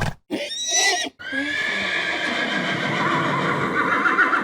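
Animal call from a farm and wild animal sound-effects library: a short pitched call, then a long wavering call lasting about three seconds.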